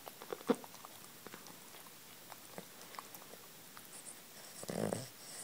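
Sleeping Boston terrier puppy making soft mouth clicks and smacks, then one snore near the end.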